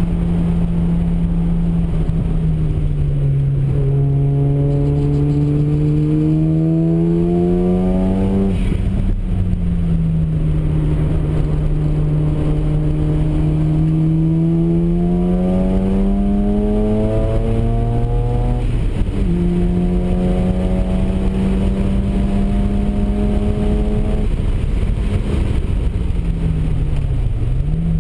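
Mazda RX-7's rotary engine heard from inside the cabin at speed, over steady road and wind noise. The revs climb over several seconds and drop sharply twice, about nine and nineteen seconds in, then dip and pick up again near the end.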